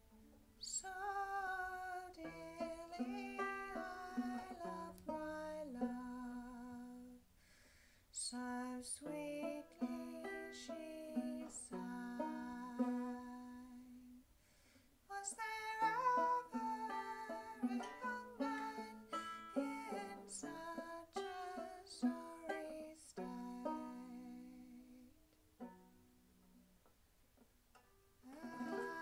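A woman singing a folk song to her own plucked banjo accompaniment, in phrases with short pauses between them.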